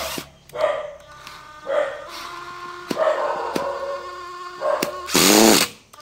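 Cordless impact driver run in several short trigger bursts, with the loudest and longest burst near the end. Once its hammer mechanism engages it is noisy at any speed.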